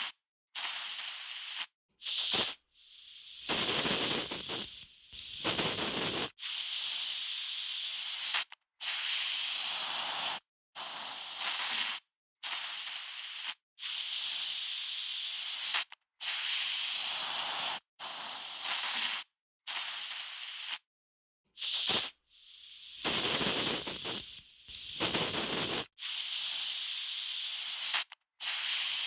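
Aerosol spray can spraying in repeated short bursts, each a second or two long, with a steady high hiss that starts and stops abruptly; about a dozen bursts.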